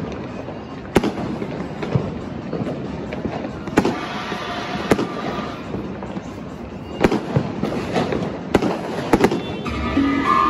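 New Year's fireworks and firecrackers going off: sharp bangs at irregular intervals, about eight in all, over a constant crackling background.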